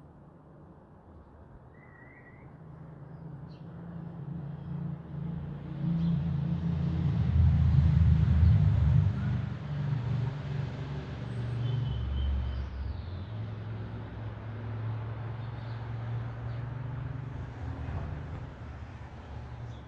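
Low rumble of a power station structure collapsing in a demolition. It builds over several seconds, is loudest about eight seconds in, then slowly fades while still going.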